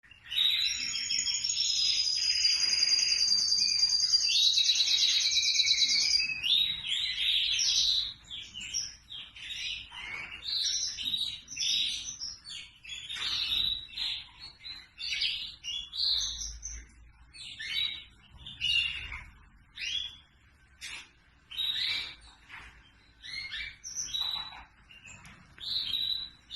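Red factor canary singing: a continuous song with a long, very rapid trill over the first several seconds, then shorter separate chirps and phrases with brief pauses between them.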